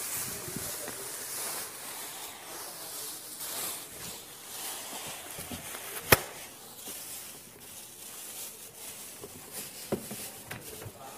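Toothbrush scrubbing teeth, a scratchy, uneven hiss, with a single sharp click about six seconds in.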